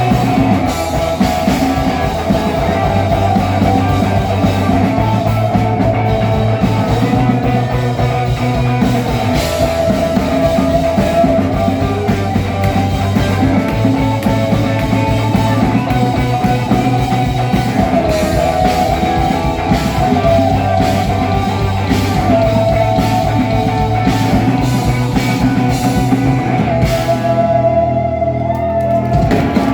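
Rock band playing an instrumental passage with electric guitar, bass and drum kit keeping a steady beat. Near the end the drums and bass drop out and a single held note rings on.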